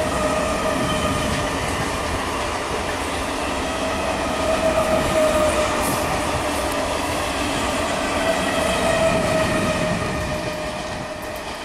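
An electric multiple-unit suburban train running past at speed: a continuous rumble of wheels on rail with a steady high whine over it. It fades near the end as the coaches run on.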